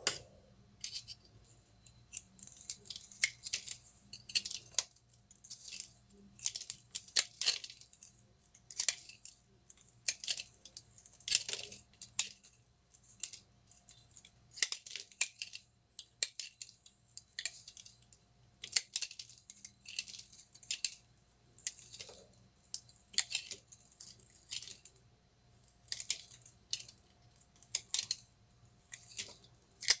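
A scored bar of soap being carved and broken apart by hand: crisp crackling and snapping as thin shards of dry soap break off, in short irregular clusters every second or two.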